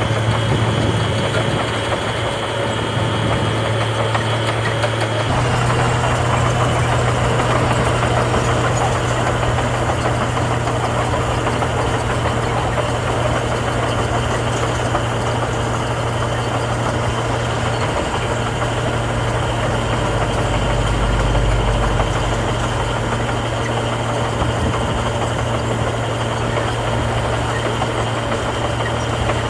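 Heavy diesel engines of earthmoving machines running steadily at work. About five seconds in the engine note shifts and gets a little louder, and a deeper rumble swells for a couple of seconds past the twenty-second mark.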